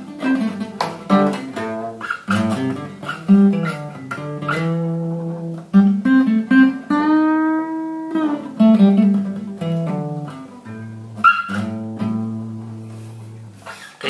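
Seagull Entourage Rustic acoustic guitar played with plucked single notes and chords. A long held note comes about seven seconds in, and the passage ends on a low note left ringing and fading away.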